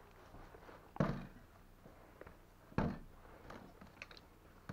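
Two dull knocks about two seconds apart, with a few lighter taps between and after: wicker baskets being handled and knocked against hard surfaces.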